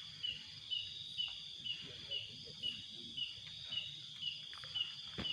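Night insects: a short chirp repeating evenly about twice a second over a steady high insect drone.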